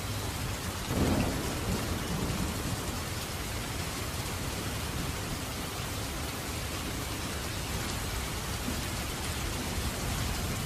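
Heavy rain falling steadily on a city bus, heard from inside the bus as an even hiss, with a brief louder low thump or rumble about a second in.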